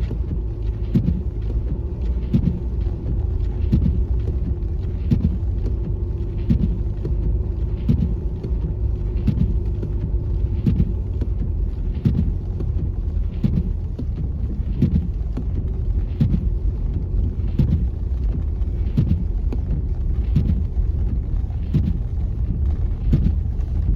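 Car driving slowly over snow-covered road, heard from inside the cabin: a steady low road and engine rumble with a faint hum and a regular soft knock about every two-thirds of a second.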